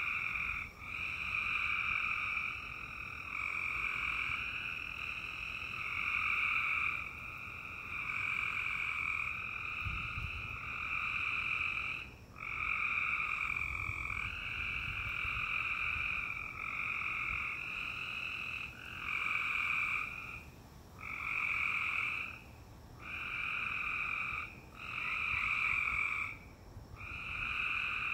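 A steady chorus of animal calls, each call about a second long and repeating with short gaps between.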